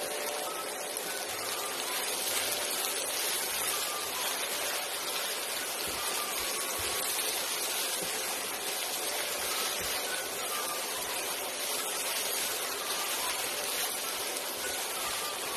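Sliced onions sizzling steadily in hot oil in a frying pan as they fry towards golden brown.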